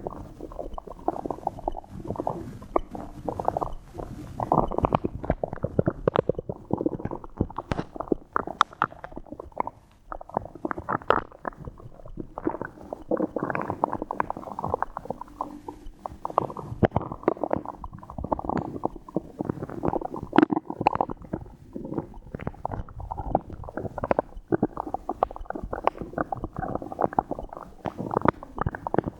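A woman's stomach gurgling and rumbling almost without pause, with many short pops and squelches, as water and swallowed air move through it. There is a brief lull about ten seconds in.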